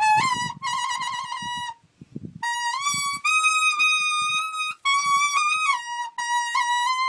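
A leaf blown as a reed instrument (Khmer plom slek), playing a high melody that keeps near one note, stepping up and down with quick trills and wavering. The melody breaks off briefly about two seconds in, then resumes.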